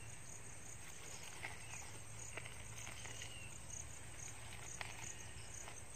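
Faint insect chirping, short high chirps repeating about twice a second over a quiet outdoor hiss, with a few faint ticks.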